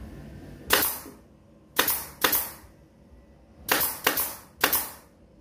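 Pneumatic nail gun firing six times into the wooden chair frame, each a sharp bang with a short hiss of air, in two quick groups of three.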